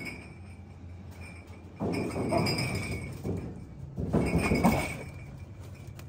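A spaniel detection dog shifting about on a drinks-fridge shelf, bumping cartons and bottles with light clinks and rustles in a few short bursts, over a faint steady high whine.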